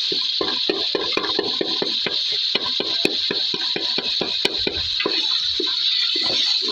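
Food frying in a pan with a steady sizzling hiss, while a spoon stirs it with quick, irregular knocks against the pan, several a second.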